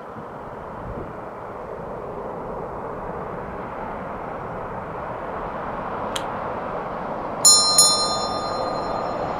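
Steady rumble of a climbing Boeing 787's jet engines, slowly growing a little louder. About six seconds in there is a single click, then a bell is struck twice in quick succession and rings on for a second and a half, louder than the engines.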